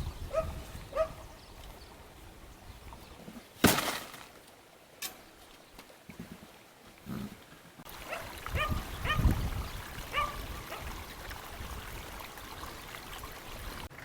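Short, high animal calls, a pair near the start and a run of several later, with a sharp knock about four seconds in.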